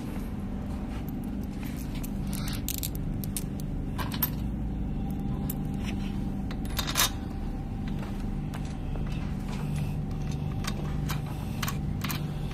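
Small metal parts clinking and scraping: bolts and nuts being handled and fitted against a steel machine frame, a few sharp clicks standing out, over a steady low hum.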